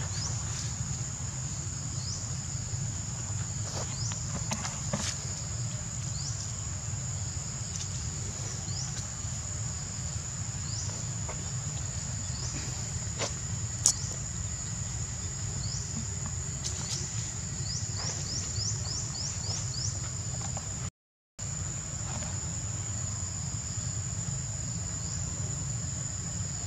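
Steady high-pitched insect drone over a low rumble, with scattered short chirps and a few faint clicks; the sound cuts out for a moment about twenty-one seconds in.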